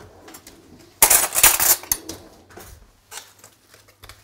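Kitchen utensils and dishes clinking and clattering on a countertop, with a loud burst of clatter about a second in and scattered smaller clinks after.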